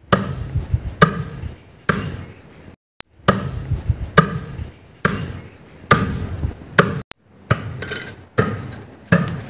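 Long wooden pestle pounding grain in a stone mortar: thuds about once a second, coming faster near the end.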